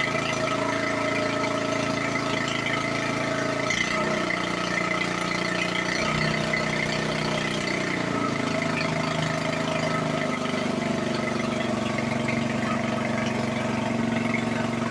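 A motor running steadily, its pitch shifting up and down in steps several times.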